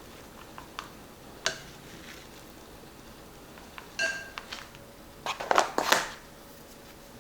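Kitchen handling sounds of plastic food storage containers: a few sharp clicks and clacks, one with a brief ring about four seconds in, then a burst of scraping and rattling about five to six seconds in.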